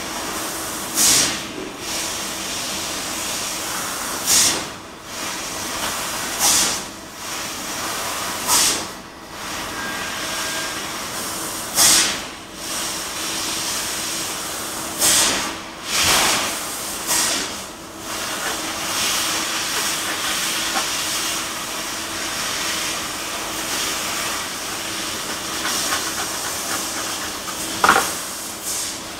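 Bystronic laser cutting machine cutting stainless steel sheet: a steady hiss of gas jetting from the cutting head, rising into a louder burst of hiss every few seconds, over a faint steady hum.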